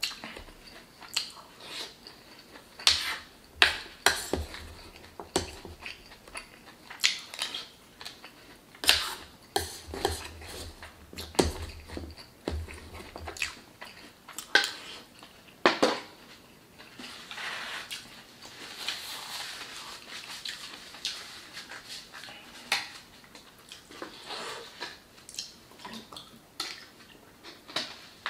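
A plastic spoon clicks and scrapes against a food tray as leftover burrito filling is scooped up, with many sharp clicks through the first half. After that come softer, close-miked chewing and mouth sounds.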